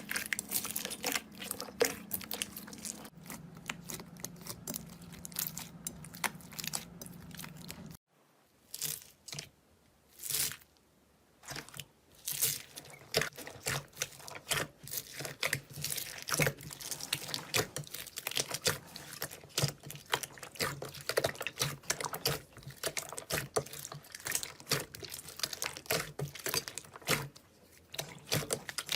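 Slime being squeezed and stretched by hand, giving rapid crackling clicks and pops, with a brief near-quiet break about a third of the way in before the crackling starts again.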